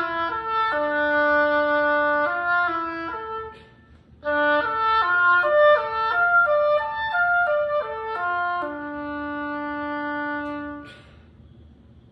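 Solo oboe playing an étude: a phrase of held and moving notes, a short breath, a quicker run of notes, then one long low held note that ends the piece about eleven seconds in.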